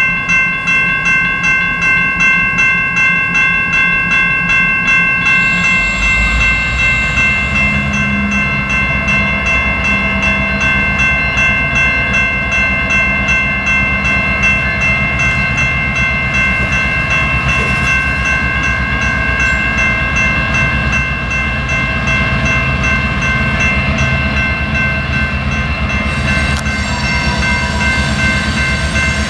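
A bell rings steadily at about one and a half strokes a second beside a BNSF EMD GP38-2 diesel locomotive. About six seconds in, the locomotive's 16-cylinder two-stroke diesel engine comes in as a low rumble and keeps running as it draws toward the crossing.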